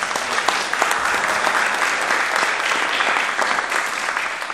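Audience applauding, many hands clapping at once, tailing off near the end.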